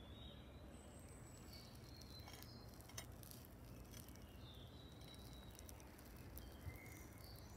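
Near silence: faint outdoor ambience with distant birds chirping now and then, and a faint click about three seconds in.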